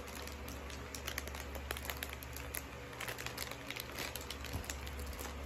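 Clear plastic gift wrapping crinkling as hands handle and pull at it, a run of small, irregular crackles.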